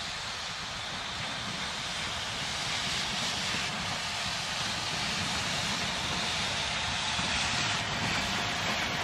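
WW&F No. 9, a two-foot-gauge 0-4-4 Forney steam locomotive, working toward and past with a train of boxcars: a steady hiss of steam from its open cylinder cocks mixed with its exhaust, slowly growing louder as it nears.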